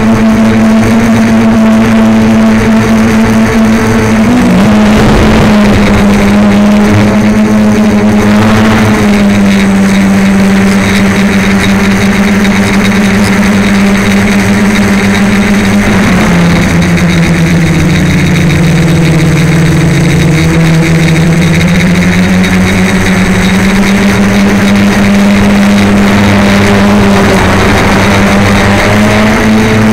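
DJI Flame Wheel F450 quadcopter's stock motors and propellers buzzing steadily, heard from the camera on board, close to the motors. The pitch drops for a few seconds past the middle as the throttle eases, then climbs back.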